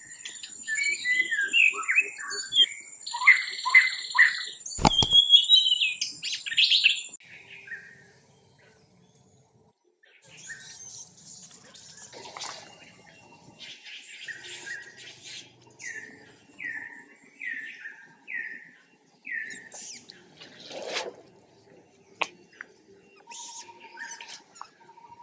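High-pitched chirping animal calls: a loud, dense run of rising and falling squeaks for about the first seven seconds, then a short lull, then softer chirps, including a series of about five falling chirps roughly a second apart.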